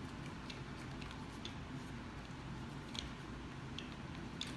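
Faint, scattered small clicks and taps, about half a dozen, from hands fitting and screwing a DSLR onto a camera slider's carriage mount, over a low steady room hum.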